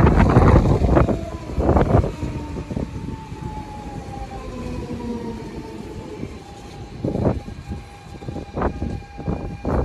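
DSB Litra SA S-train at a platform: a loud rush of the passing train for the first two seconds, then the electric traction motors whine in steady tones that slowly fall in pitch, as when the train brakes. Several sharp knocks come near the end.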